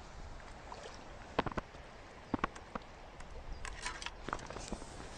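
Wind buffeting the microphone in a steady low rumble, with several sharp clicks and knocks from the pole and tackle being handled, and light splashing at a landing net in the water.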